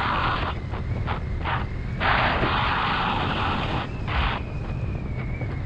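KTM Duke 390's single-cylinder engine running under a steady low rumble, with several bursts of hissing noise, the longest starting about two seconds in and lasting nearly two seconds.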